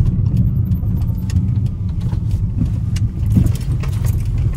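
Car interior noise while driving slowly: a steady low engine and road rumble, with scattered light clicks and rattles inside the cabin.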